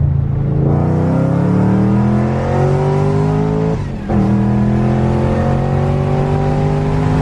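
2014 Shelby GT500's supercharged 5.8-litre V8 accelerating hard at wide-open throttle, its pitch rising steadily. Its sound drops briefly at a gear change about four seconds in, then rises again more slowly in the next gear.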